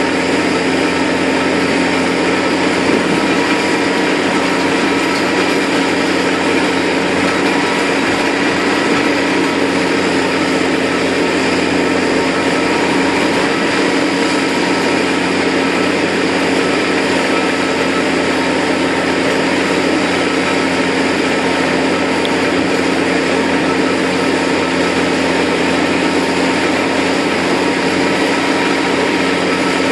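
Tractor-driven GROWI three-point PTO slurry mixer running at a steady speed while stirring slurry in an open pit: a constant engine-and-drive drone at one unchanging pitch.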